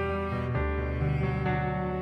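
Background music: a slow, soft instrumental of long held notes that change every half second or so.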